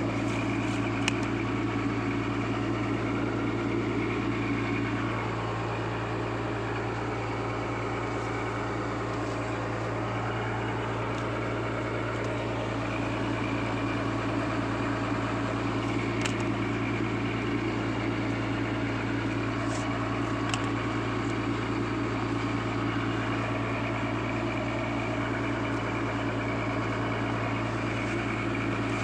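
A fishing boat's engine running steadily with a constant low hum, with a few faint clicks now and then.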